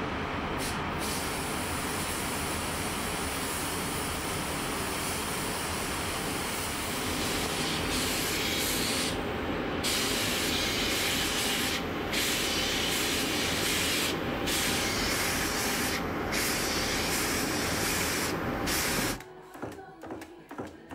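Compressed-air paint spray gun spraying paint onto a car body: a steady rushing hiss that grows brighter partway through and breaks off in short gaps several times. It stops suddenly about two seconds before the end.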